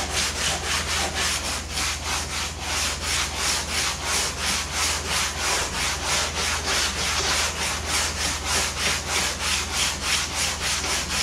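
Sandpaper on a hand sanding block rubbing back and forth over a pink foam kayak hull in quick, even strokes, several a second. The block is knocking down high spots and ridges in the foam.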